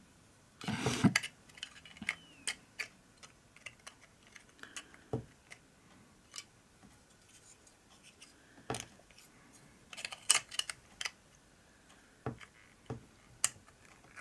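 Small red model-kit parts handled and pressed together by hand: scattered light clicks and taps, with a short scraping rustle about a second in and a cluster of clicks around ten seconds in.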